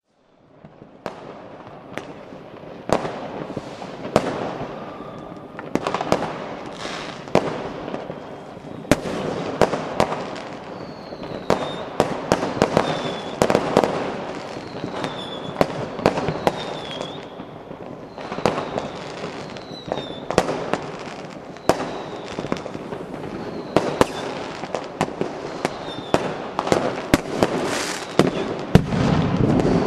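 Fireworks going off: a steady run of sharp bangs and cracks, sometimes several a second, over a crackling hiss, with short high falling whistles recurring through the second half. It starts about a second in and is loudest near the end.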